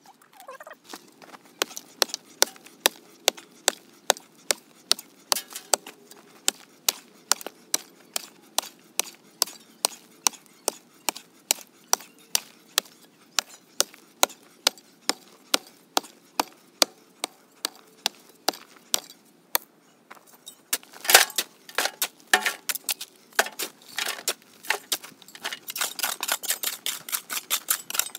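Pick mattock striking into clay and gravel while digging a hole by hand, steady blows about two a second. After a short pause about two-thirds of the way through, the strikes come quicker and closer together.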